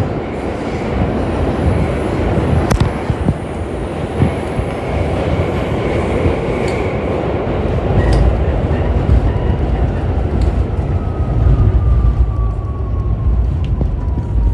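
Subway train running through a tunnel, heard from inside the car: a heavy wheel-and-rail rumble with a few sharp clacks. In the last few seconds a whine falls steadily in pitch as the train slows for a station.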